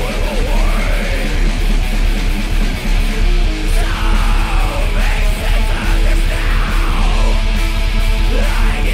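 Loud hard rock music with electric guitar and a steady driving beat.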